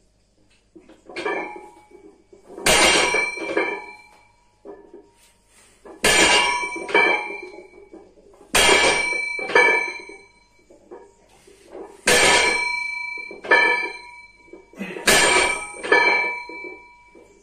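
Iron weight plates on a loaded bar clanking and ringing as the bar is set down on the floor at each rep. There are five main hits about three seconds apart, each followed by a smaller clink.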